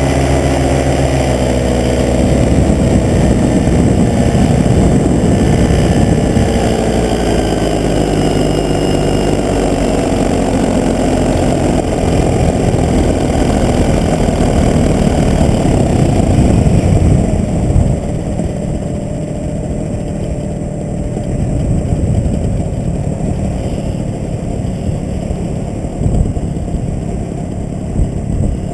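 Paramotor engine and propeller running in flight, its pitch shifting as the throttle changes. About 17 seconds in the engine note drops away, leaving mostly wind rushing over the microphone as the paraglider glides down toward the field.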